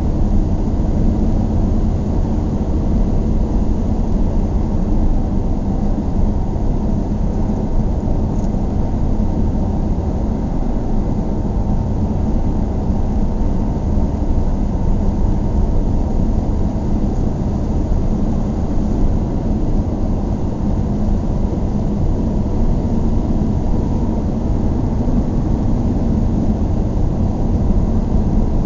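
Steady low rumble of a car driving along a town road: tyre and engine noise heard from inside the cabin, with no changes or sudden events.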